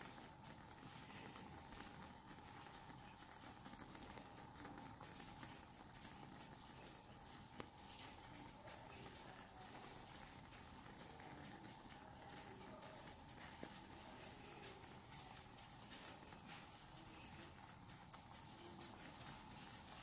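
Near silence: a faint steady hiss and a faint hum, with a couple of tiny clicks about seven and thirteen seconds in.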